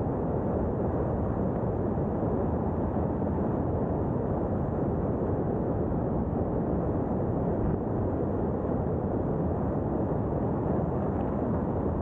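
Steady rush of wind and road noise from a 2022 Subaru WRX driving at a constant speed, heard through a microphone mounted outside the car and buffeted by the wind. There is no distinct engine note and no separate knocks or bumps.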